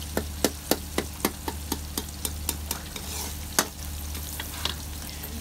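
Onions frying in oil in a pot with a steady sizzle, and a spoon knocking against the pot about four times a second as they are stirred. The knocking ends with one louder knock a little before four seconds in.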